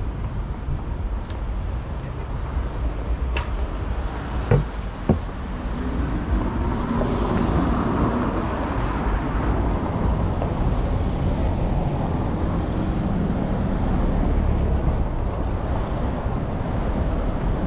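Road traffic on a city high street: a steady low rumble of engines, with a vehicle passing close and louder from about six seconds in. Two sharp knocks sound about half a second apart, a little before that.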